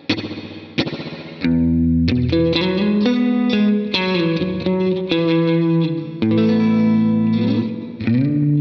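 Electric guitar played through a FLAMMA FS02 reverb pedal: two sharp strummed chords left to ring out and fade, then a run of held notes and chords that change pitch.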